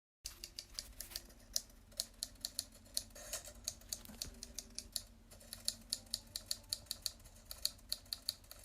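Keys clicking in quick, uneven succession, as in typing on a keyboard, starting about a quarter second in.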